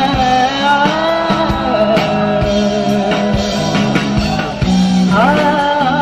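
Live folk-rock band playing: electric guitars and a drum kit under a wavering sung melody, amplified through a PA.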